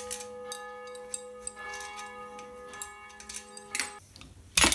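A held chord of several steady tones plays in the background while small metallic clicks come from a hex key turning the screws of an air compressor pump's crankcase cover. The chord cuts off suddenly about four seconds in, and a loud short knock follows near the end.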